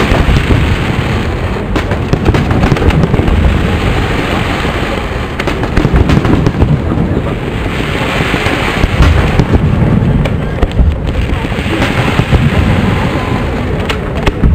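Fireworks display: aerial shells bursting one after another, with dense bangs and pops overlapping on a deep rumble.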